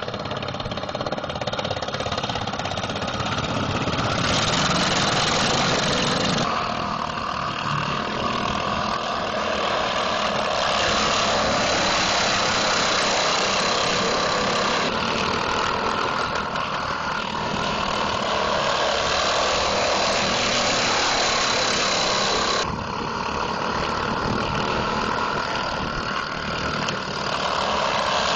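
Racing lawn mower engines running loudly and continuously. The sound abruptly shifts in strength and tone several times.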